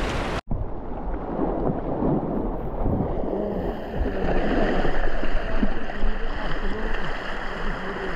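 Rushing river water, muffled, after an abrupt cut just under half a second in.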